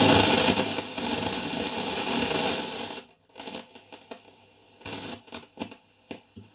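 Philips B7X14A valve radio being tuned across the AM band: loud static hiss from its speaker for about three seconds as the music station is tuned off, then much quieter with short scattered crackles.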